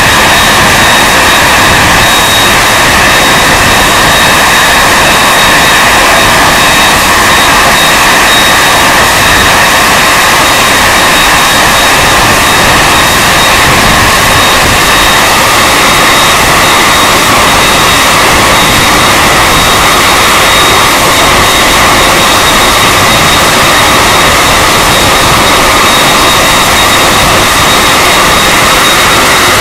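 Boeing 747-400F's four jet engines at taxi idle, a loud steady whine with a constant high tone, as the freighter creeps to a stop on its stand.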